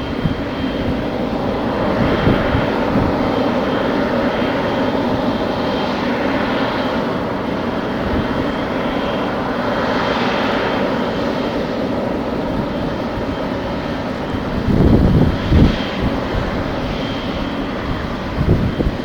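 Airliner jet engines running steadily, with a thin high whine over the noise. Wind gusts buffet the microphone about fifteen seconds in and again near the end.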